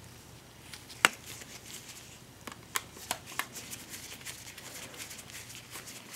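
Light clicks and scraping of metal as a metal mounting bracket is fitted to the side of a hard drive and its screw is driven in with a Phillips screwdriver. One sharper click about a second in, a few more around the middle, then lighter ticking.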